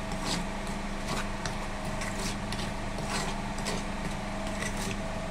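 Steel spoon stirring dry gram flour in a steel bowl, with irregular scrapes and light taps of the spoon against the bowl. Under it runs a steady mechanical hum.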